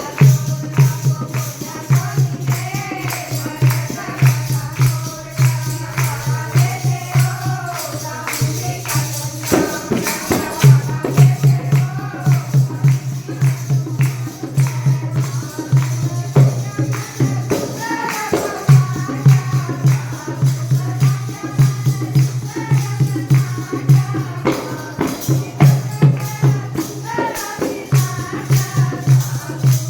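Haryanvi devotional bhajan music: a wavering melody over a fast, steady drum beat and constant tambourine-like jingling.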